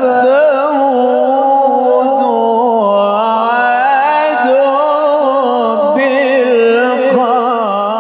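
A man reciting the Quran in the melodic tajweed style, holding long ornamented notes whose pitch wavers and glides.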